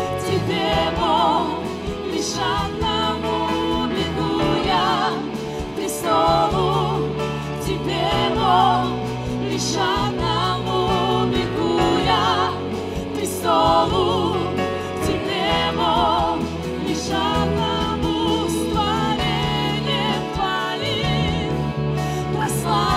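Live worship song in Russian: several singers, with audible vibrato on held notes, over a full band with keyboards, guitars and bass.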